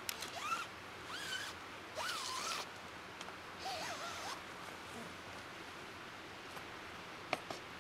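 Hilleberg Rogen tent door zipper being pulled in four short strokes, each a brief rasp that rises and falls in pitch, followed by a single sharp click near the end.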